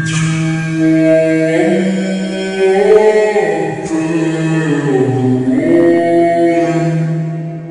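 Slowed-down, heavily reverbed nasheed: layered male voices singing a cappella in long held, sliding notes over a sustained low note, with no instruments. The singing dips briefly in loudness near the end.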